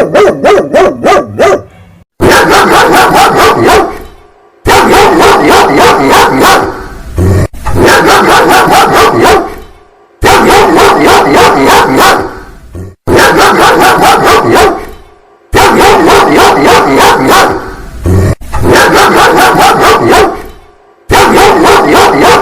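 Big dog barking angrily in loud runs of rapid barks, each run about two seconds long, with short breaks between them.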